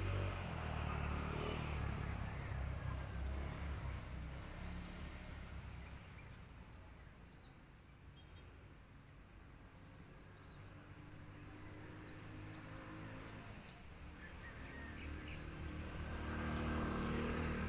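Outdoor ambience: a low rumble that fades away over the first six seconds and swells again near the end, with a few faint high chirps.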